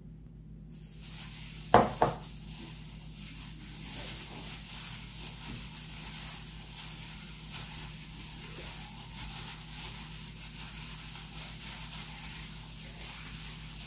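Two sharp knocks, then a steady, dry, grainy rustle as sugar is added to and worked into a bowl of flattened green rice flakes (cốm dẹp).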